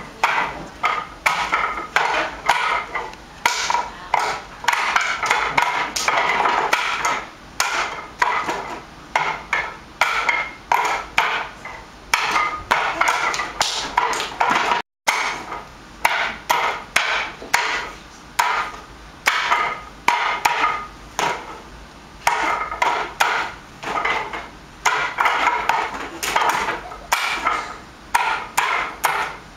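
Wooden Wing Chun dummy (mook jong) struck by forearms and palms on its arms and trunk. The knocks and clacks of wood come irregularly, often in quick runs of several, with a momentary dropout about halfway through.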